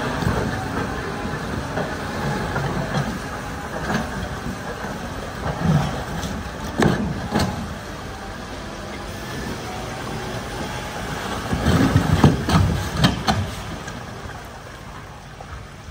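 Farm tractor's diesel engine running as it pulls a loaded flatbed trailer through floodwater, with the trailer clattering and knocking, sharply about seven seconds in and again about three-quarters through. It fades as the rig passes.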